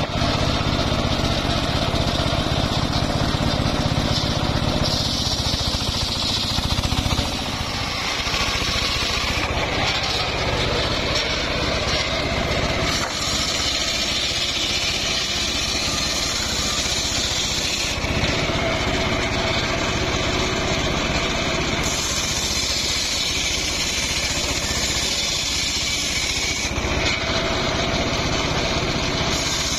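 Homemade engine-driven circular sawmill running, its large blade ripping lengthwise through mahogany logs. The steady engine-and-blade noise changes abruptly several times.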